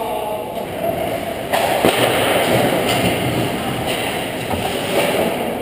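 Ice hockey play around the goal: a steady scrape of skates on ice with sticks clacking. There is a sharp knock about a second and a half in, then a few lighter knocks.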